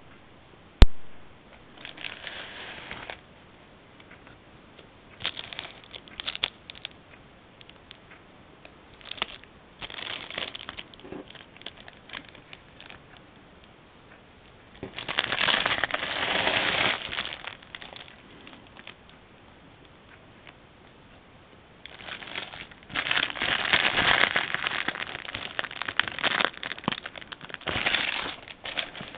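Crinkling and crackling of thin plastic being handled, in several separate bursts lasting one to several seconds, with one sharp click under a second in.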